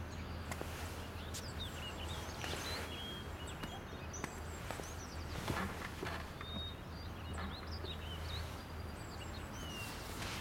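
Small birds chirping in short scattered calls over a steady low hum of distant city traffic, with a few soft taps.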